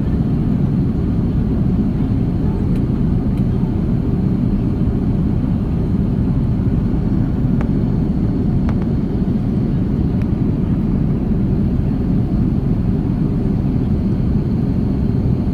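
Steady low rumble of an Airbus A330-300's engines and airflow, heard from inside the cabin in flight, with a few faint clicks.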